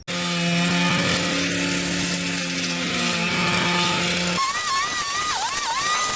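Small two-stroke engine of a handheld power tool running at a steady speed. About four seconds in, its note jumps much higher and wavers, dipping briefly once or twice as if loaded.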